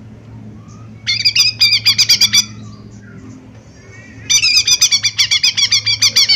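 Lesser green leafbird (cucak ijo mini) giving two bursts of fast, harsh rattling calls, each a run of quick strokes lasting a second or two, the second burst starting about two seconds after the first ends.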